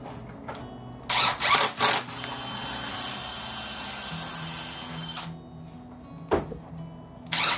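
Cordless driver sinking pocket-hole screws into clamped pine boards: a few short loud bursts about a second in, a steady run of about three seconds, a single knock, then more short bursts near the end.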